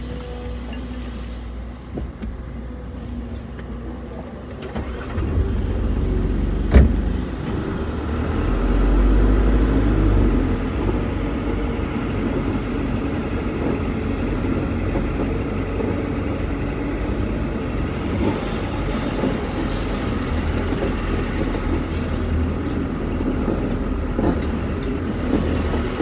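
Dump truck engine running as the truck drives along a sandy dirt track, heard from the truck itself. The rumble picks up about five seconds in and is heaviest a few seconds later, with one sharp knock in between, then runs steadily.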